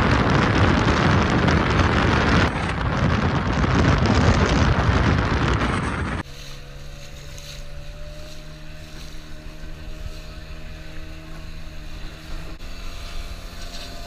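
Loud wind rushing over the microphone while travelling fast along a road. About six seconds in it cuts off to a much quieter, steady drone of a speedboat engine towing a banana boat over the water.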